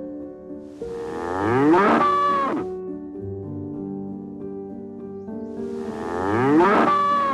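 Two long mooing calls from a bovine, each rising in pitch, starting about one second in and again about five and a half seconds in. Soft background music with sustained notes plays underneath.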